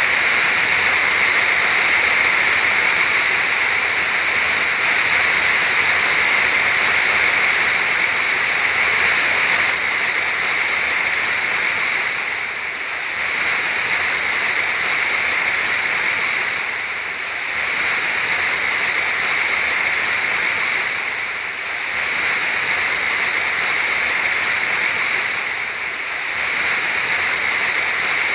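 Waterfall rushing: a steady, loud hiss of falling water, heaviest in the high range, easing slightly about every four to five seconds in the second half.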